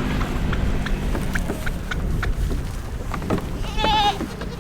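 A goat bleats once with a wavering call near the end, among scattered light knocks. A tractor engine hums low under the start and fades out within the first second.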